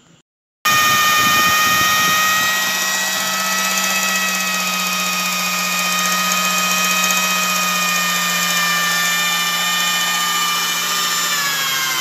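Homemade three-phase generator made from a fan motor, spun at about 1000 RPM by a motor while lighting a 35-watt lamp: a steady whine that starts about half a second in and sags slightly in pitch near the end.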